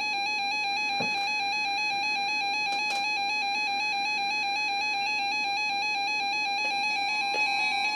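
Electronic alert alarm of a NOAA Weather Radio receiver: a steady, rapidly warbling beep tone, with a second steady tone faintly joining near the end.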